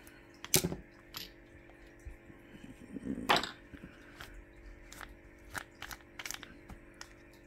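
Clicks and knocks of small tools and metal parts being handled during the teardown of a model nitro engine, with the loudest knock about three seconds in and a run of lighter ticks near the end.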